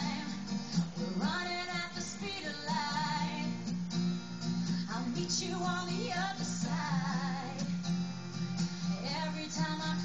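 Live unplugged pop song: a woman singing with acoustic guitar accompaniment.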